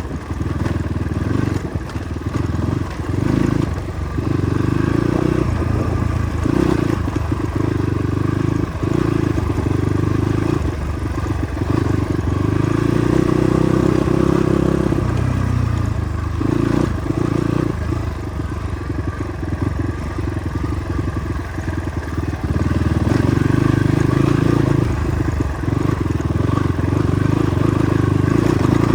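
Motorcycle engine running while ridden over a rough, unpaved track, its note swelling and easing repeatedly, with frequent knocks and rattles from the bike over the bumps.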